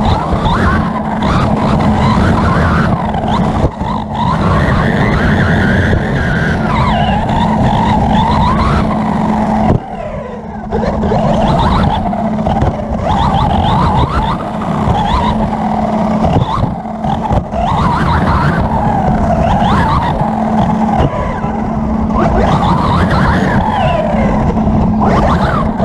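Onboard sound of a 1:8 scale electric R/C buggy racing on dirt: its Hobbywing 3600kv brushless motor whines up and down in pitch as the throttle is worked, over the rattle and rumble of the tyres and chassis on the rough track. The sound dips briefly about ten seconds in.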